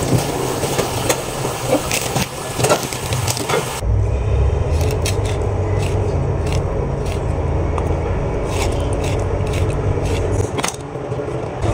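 Tap water running and splashing as banana leaves are rinsed and handled, with crackly leaf rustles. About four seconds in, the sound changes abruptly to a steady low hum with a kitchen knife scraping and knocking against a whole fish on a chopping board in short, irregular strokes.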